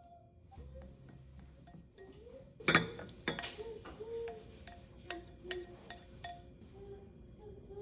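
Kitchenware clinking and knocking, with two sharp clinks a little over half a second apart near the middle and lighter taps around them.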